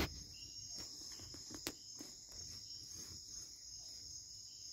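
Steady high-pitched chorus of night insects such as crickets, with a couple of sharp clicks.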